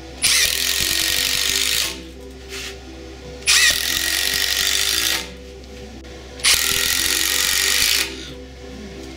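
Brushless Milwaukee impact driver driving long wood screws into a 2x4: three bursts of rapid impacting, each about a second and a half, with short pauses between. Background music runs underneath.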